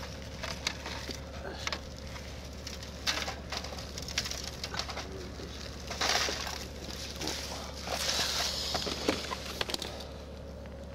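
Aluminium-foil trays being handled and set down: light clinks and foil crinkles, with louder rustling about six seconds in and again near eight to nine seconds, over a steady low hum.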